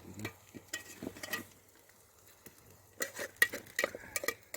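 Scattered light clicks and clinks of small hard objects being handled, sparse at first, then coming thick and fast in the last second and a half.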